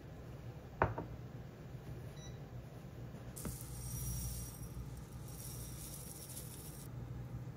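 Sesame seeds pouring from a plastic shaker into a ceramic dish: a light, grainy hiss of seeds landing that starts a little before halfway and lasts about three and a half seconds. Before it, a single sharp knock, the loudest sound.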